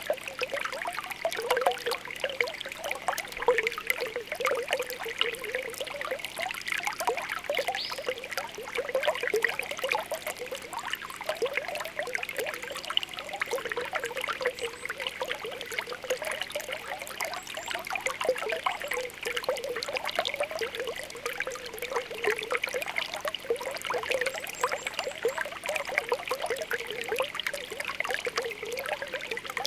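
Spring water welling up from the ground, bubbling and trickling steadily with a continuous patter of small pops.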